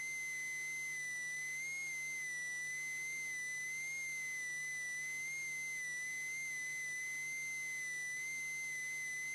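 A single steady high-pitched tone, wavering slightly in pitch, over a faint hum, heard on an open two-way radio channel between transmissions.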